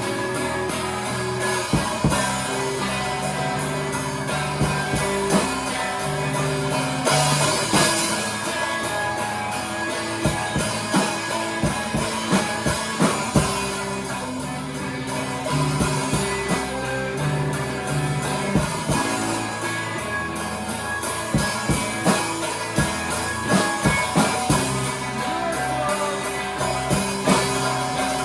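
A live rock band playing an instrumental passage: guitar and drum kit, with held notes and a steady drum beat.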